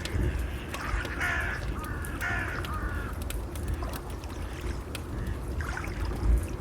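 A bird calling in two short bouts, about one and two seconds in, over the steady low rush of waves and scattered crackles of a fire.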